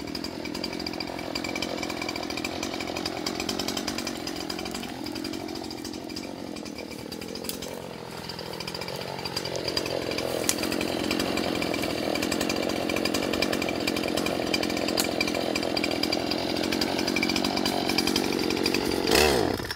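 Poulan Pro two-stroke chainsaw running, its pitch rising and falling in the first half, then held steadier and louder as the chain cuts into a dead log. The engine cuts off just before the end.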